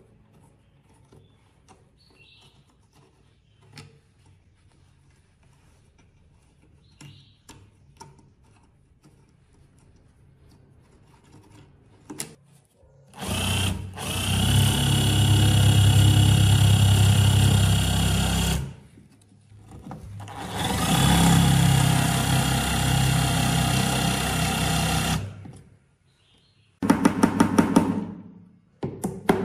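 Power tool running in two bursts of about five seconds each, after light handling clicks. Near the end comes a short run of rapid repeated strokes.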